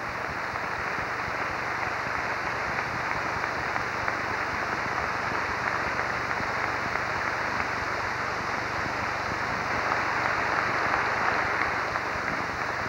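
Large audience applauding, long and steady, a little stronger near the end.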